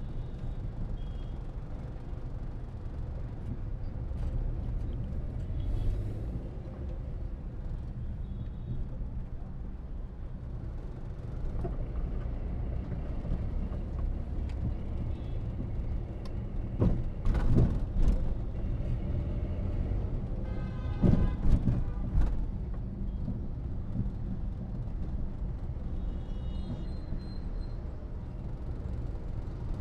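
Steady low rumble of a car and the traffic around it, heard from inside the moving car in slow city traffic. Louder sudden noises from other vehicles come twice, about two-thirds of the way through.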